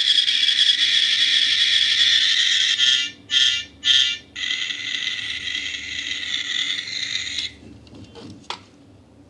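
Die-cast metal toy army jeep giving off a high, buzzing sound. It is steady for about three seconds, then comes in two short bursts, then runs quieter for about three seconds more before cutting off suddenly.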